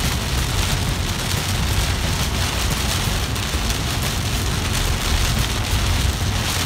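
Heavy rain falling on a car's windshield and body, heard from inside the cabin while driving, over a steady low rumble of the car moving on a wet road.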